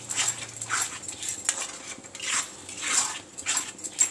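Spatula scraping and stirring a thick onion-tomato-cashew paste as it fries in a wok, in repeated uneven strokes about two a second.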